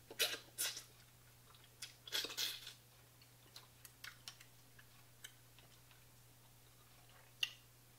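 Eating sounds from a seafood boil eaten by hand: chewing and biting, with two louder clusters near the start and about two seconds in, scattered small clicks, and one more sharp sound near the end.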